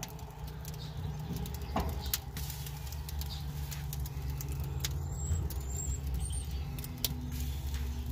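Electric rotisserie spit motor humming steadily as it turns a whole chicken, with scattered faint ticks.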